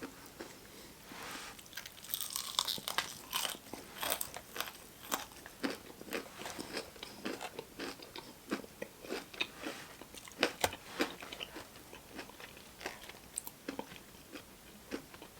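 Close-miked biting and chewing of crunchy fried food, likely Popeyes fried chicken: irregular crisp crunches a few times a second.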